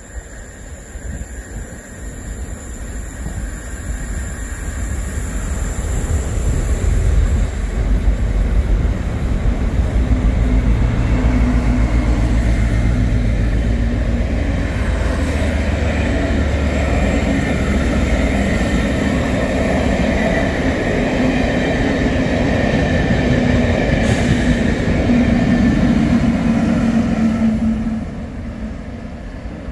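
Loco-hauled passenger train of InterCity coaches passing, with a steady rumble of wheels on rails that builds over the first several seconds. A diesel locomotive's engine is heard toward the end as it passes, and the noise drops off suddenly near the end.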